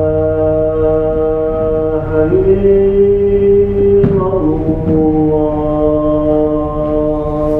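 Slow chant of long, steady held notes that step to a new pitch about two seconds in and again just after four seconds.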